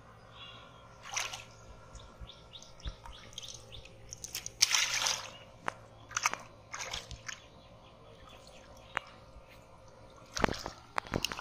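Hands splashing and sloshing in shallow muddy water while groping for and grabbing a fish: scattered brief splashes, the loudest about five seconds in, and another cluster of splashes near the end as the fish is caught.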